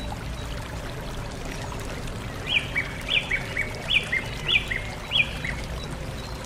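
A bird calling a run of sharp, quickly falling chirps, each followed by a lower echoing note, about five in three seconds, starting a couple of seconds in. Steady low background noise runs underneath.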